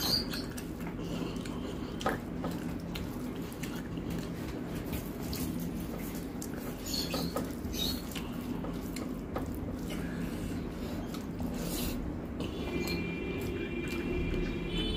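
Fingers mixing rice and curry on a steel plate, with wet squishing and occasional light clicks against the metal, over a steady low hum. About twelve seconds in, a thin high whine from a dog starts and carries on to the end.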